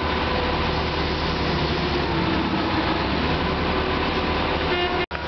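MSHU-4 tie renewal machine running, a loud, even mechanical din with a steady low hum. The sound cuts out for an instant near the end.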